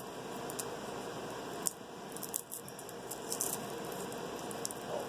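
Papery garlic skins crackling and rustling as cloves are peeled by hand, with scattered sharp clicks over a steady hiss.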